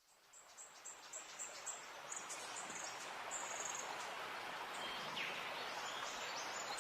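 Outdoor ambience fading in from silence: a steady hiss of background noise, with birds giving many short high chirps and a couple of brief falling whistles.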